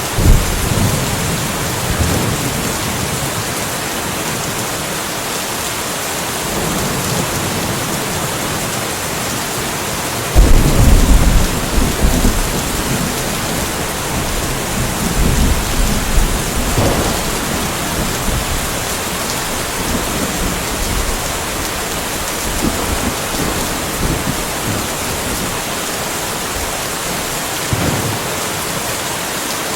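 Steady rain with thunder rumbling several times; the loudest rumble comes about a third of the way in and lasts about two seconds, with softer rumbles near the start, in the middle and near the end.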